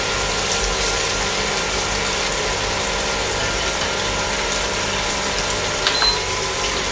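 A salmon steak and green beans sizzling in a frying pan over the steady hum of a portable induction cooktop's cooling fan. Near the end a press on the cooktop's touch panel gives a click and a short high beep.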